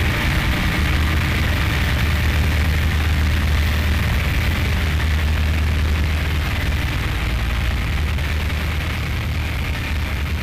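Harsh noise wall soundtrack: a dense, unchanging mass of static hiss over a heavy low rumble, with no rhythm or melody, easing off slightly toward the end.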